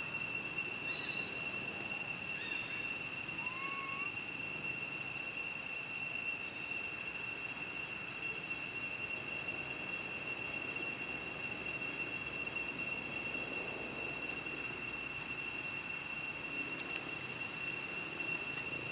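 Steady, unbroken high-pitched drone of an insect chorus, held at several pitches. A few short whistled chirps and one rising whistle come in the first few seconds.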